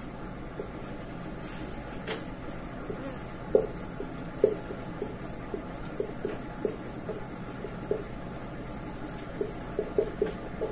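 A cricket trilling steadily at a high pitch, joined from about three seconds in by short, irregular squeaks of a marker writing on a whiteboard.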